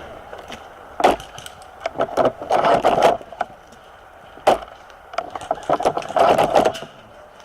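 Rustling and snapping of dry brush and twigs, in short noisy bursts, with two sharp cracks, one about a second in and one midway.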